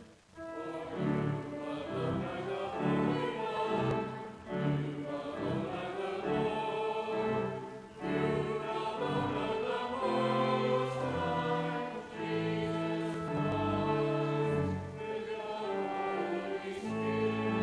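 Church congregation singing with organ accompaniment, held chords moving from note to note; a brief break at the start, the singing resuming about half a second in.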